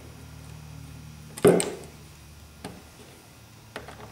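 Screwdriver work on the plastic base of a model-railway transfer table as its screws are taken out: one sharp knock about a second and a half in, then a couple of faint clicks, over a low steady hum.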